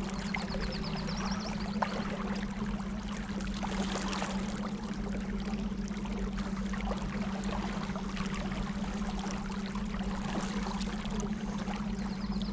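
Electric trolling motors humming steadily, with water trickling and rushing around the craft.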